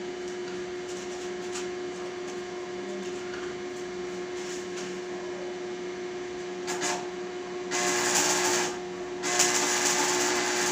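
Electric arc welding on steel: three bursts of crackling arc noise in the second half, the last and longest nearly two seconds, over a steady electrical hum.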